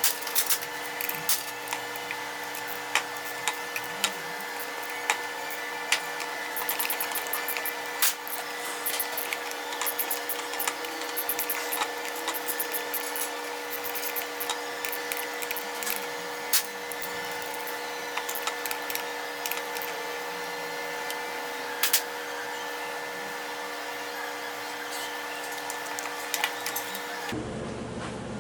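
Steady machine hum with scattered clicks and light metallic taps of tools and transmission parts being handled. The sound changes abruptly near the end at an edit cut.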